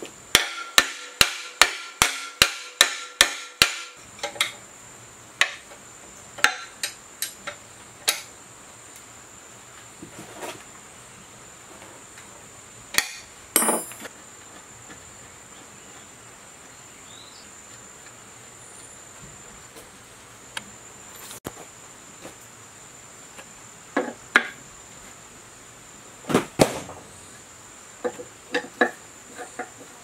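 A hammer tapping the green end cover of a 10 kW generator onto its housing to seat it: about a dozen sharp, ringing blows at roughly three a second over the first four seconds. After that come scattered single knocks and a few short clusters of taps.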